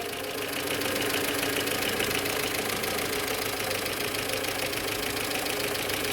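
Car engine idling steadily, a little louder after about a second in.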